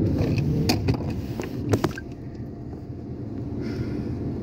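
Low, steady road and engine rumble of a moving car heard from inside the cabin, with a few brief clicks in the first two seconds; the rumble eases slightly about two seconds in.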